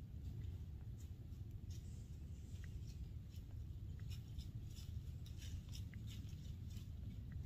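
Dry leaf litter crackling and rustling in short irregular bursts as a white-tailed deer walks through it, over a steady low rumble of wind on the microphone.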